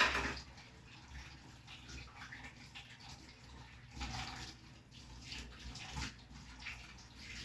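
Water splashing and sloshing as tomatoes are washed by hand, in uneven surges, loudest right at the start and again about four seconds in.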